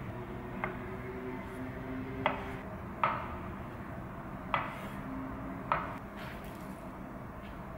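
Kitchen knife slicing through avocado and tapping down on a wooden cutting board: five short knocks at uneven intervals, the first one faint.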